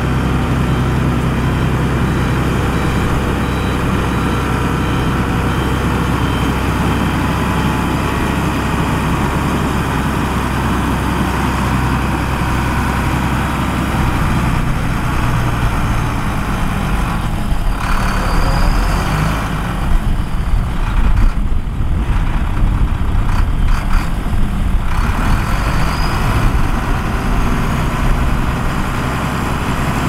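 Heavy diesel engines of construction machinery running steadily, turning rougher and more uneven in loudness about halfway through.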